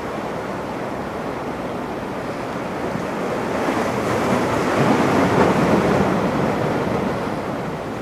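Sea waves washing in a steady rush, swelling louder in the middle and easing off near the end.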